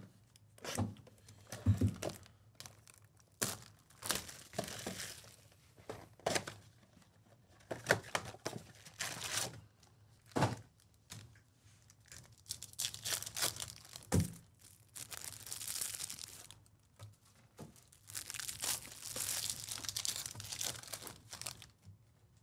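Wrappers of Topps Chrome baseball card packs being torn open and crinkled, in a run of irregular ripping and rustling bursts, some lasting a second or two. A couple of sharp knocks come in among them, one about two seconds in and one about fourteen seconds in.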